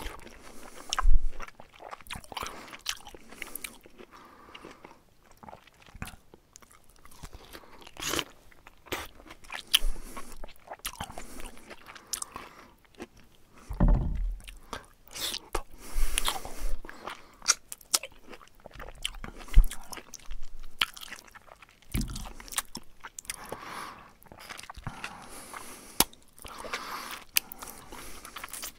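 Bear chewing and crunching food with its mouth open, in irregular bites and crunches, with a few louder low thumps.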